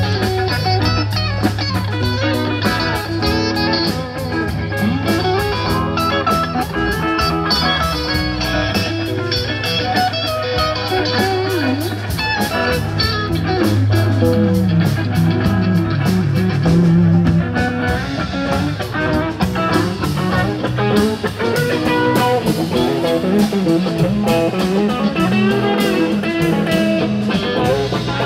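Live rock band playing an instrumental passage: electric guitar lines with bent notes over a held electric bass line, with drums and cymbals keeping time.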